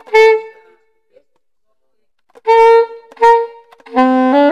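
Soprano saxophone being play-tested: short separate notes all on the same pitch, a pause, two more short notes, then near the end a longer, lower note that moves into a few wavering notes.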